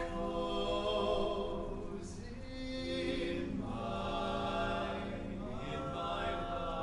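Male barbershop quartet singing a cappella in four-part harmony, holding long chords and moving to a new chord a few times.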